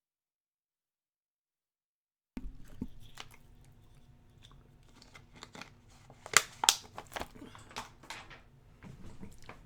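Dead silence for about the first two seconds, then the crinkling, crunching and tearing of packaging being opened by hand on a box of 2019-20 Hoops basketball trading cards, with several sharp clicks and snaps in the middle.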